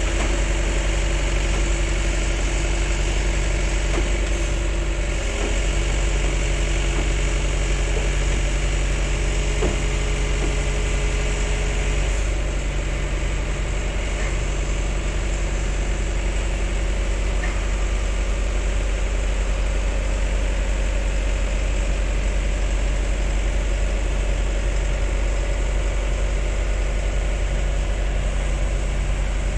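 Heavy diesel engine of an excavator or truck running steadily at low revs, with a few light knocks.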